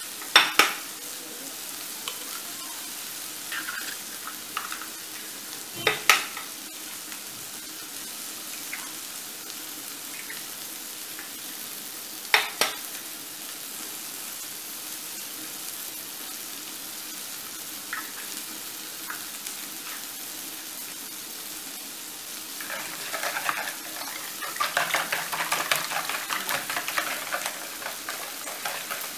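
Eggs cracked one at a time against a mixing bowl: three sharp knocks a few seconds apart, then, from about three-quarters of the way through, a fork beating the eggs in the bowl with rapid clicking strokes. A steady sizzle from leeks cooking in a pan on a gas hob runs underneath.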